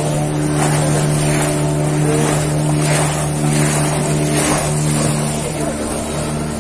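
A motorboat's engine running with a steady low hum, the note wavering near the end, over repeated swishes of water rushing past the boat.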